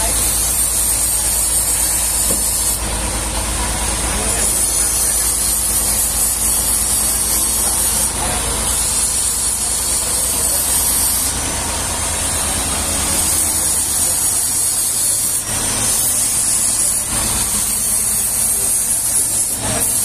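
Band-saw mill machinery running steadily: a low motor rumble under a loud hiss, with the hiss changing abruptly every few seconds.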